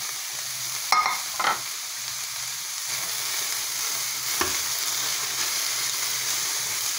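Sliced vegetables (cabbage, carrots, beans and green bell pepper) sizzling in hot oil in a metal pan, a steady hiss. Two sharp clinks come about a second in, and a metal spoon stirs and scrapes the vegetables through the second half.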